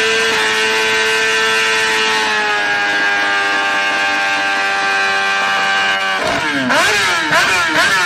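Motorcycle engine running at a steady high pitch that sags slightly. About six seconds in, the revs start rising and falling quickly over and over, roughly two swings a second.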